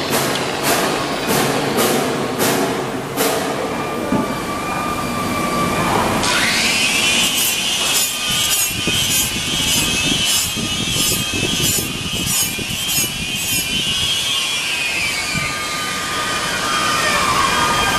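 Handheld electric drum polisher with an abrasive sleeve working a stainless steel sink: a motor whine that rises about six seconds in, runs steadily, and falls away near the end, over the rasp of the abrasive on the steel.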